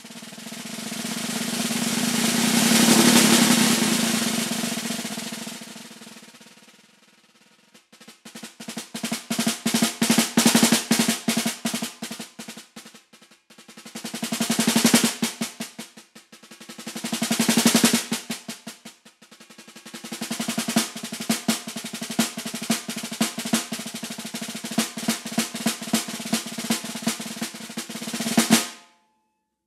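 Concert snare drum played with wooden sticks: a long roll that swells and fades, then passages of rapid strokes with two more swelling rolls, and a steady run of strokes that cuts off suddenly near the end.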